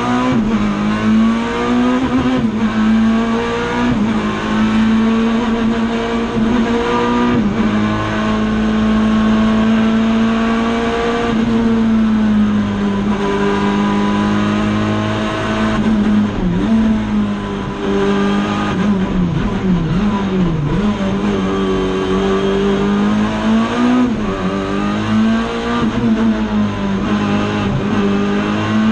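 Race car engine heard from inside the cockpit, held at high revs. The pitch dips and climbs again a number of times as the driver changes gear and lifts for corners.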